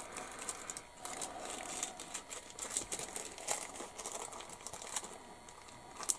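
Plastic packaging crinkling as bagged model-kit sprues are handled, with scattered small clicks and taps of plastic parts.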